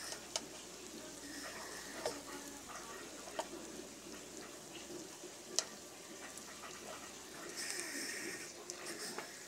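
Oil sizzling faintly in a wok as sticks of food deep-fry, with a few sharp clicks, the loudest a little past halfway.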